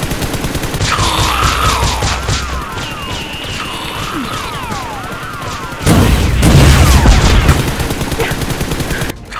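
Rapid-fire gunfire sound effect dubbed over a toy Nerf blaster, a continuous stream of shots with falling, swooping zaps over it. A louder, heavier blast about six seconds in.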